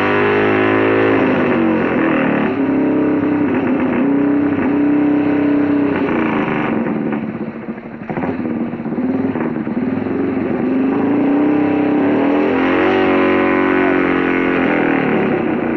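Motorcycle engine running at high revs. Its pitch falls about a second in, sags and quietens briefly midway, then climbs again near the end.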